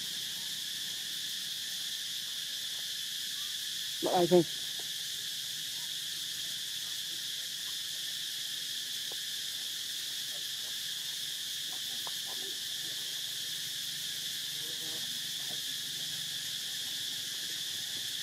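Steady high-pitched drone of insects. A short voiced call cuts in about four seconds in.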